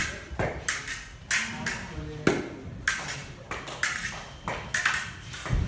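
Fencing blades striking and sliding against each other in quick exchanges: sharp metallic clicks with a short ring, about two a second.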